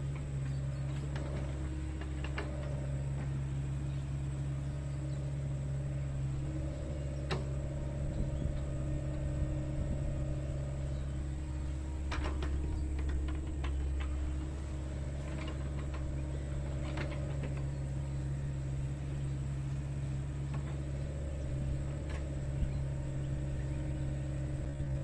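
Sunward mini excavator's engine running steadily, with a few short sharp knocks scattered through.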